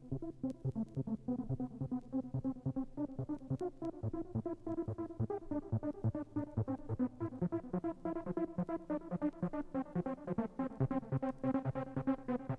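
Trance-style electronic dance music: a fast, evenly pulsing synthesizer pattern over a rhythmic bass line.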